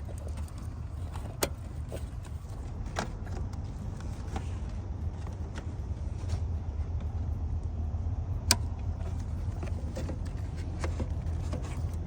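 Hand work on a car's electrical parts: scattered sharp clicks and taps over a steady low hum.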